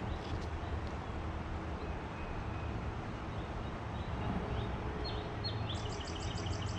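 Birds chirping, short high calls starting about four seconds in and a quick trill near the end, over a steady low rumble.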